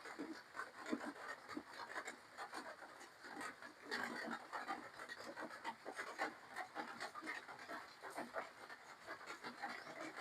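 Close-miked chewing and mouth noises of a person eating seafood papaya salad, a dense run of small irregular wet clicks and crunches.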